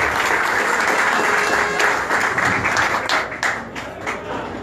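Crowd applauding, a dense patter of clapping that thins to scattered claps about three seconds in.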